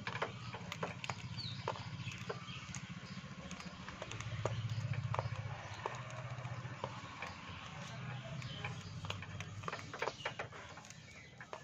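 Budgerigars' beaks nibbling and crunching a hand-held biscuit: a quick, irregular run of sharp clicks and cracks, over a low steady hum that swells about four seconds in.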